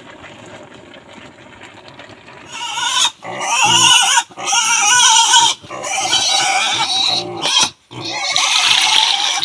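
Pigs squealing loudly in long, wavering cries, about four stretches with short breaks between them, starting about two and a half seconds in.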